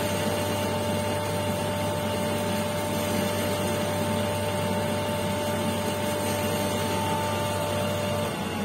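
Electric motor of a lapidary grinding wheel running steadily with a whine and hum. Near the end the hum cuts out and the whine starts to fall in pitch as the wheel winds down.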